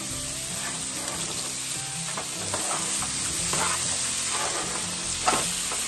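Baby potatoes with butter frying in canola oil on a hot Blackstone flat-top griddle, a steady sizzle, partly under an upturned aluminium foil tray.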